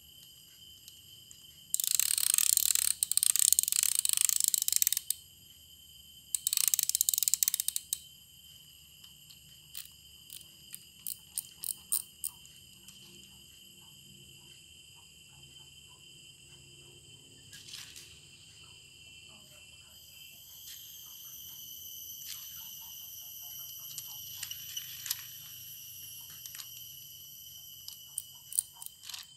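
Drag clicker of a baitcasting reel ratcheting in two rapid bursts as the spool is turned against the drag, the first about three seconds long and the second shorter, followed by scattered single clicks.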